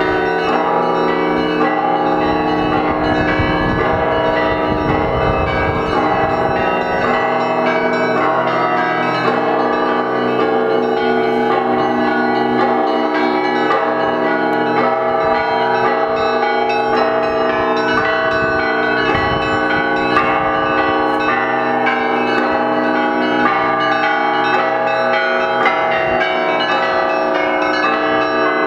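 Russian Orthodox bell ringing (zvon) from the Spaso-Evfimiev monastery belfry: many bells of different pitches struck in a continuous, dense peal, their tones overlapping and ringing on.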